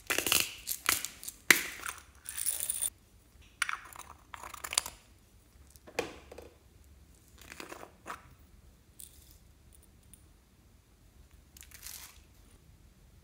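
Slime being squeezed by hand out of small plastic capsule containers, in a series of short crackling, squelching bursts. The bursts come thick and loud in the first three seconds, then singly about four, six, eight and twelve seconds in.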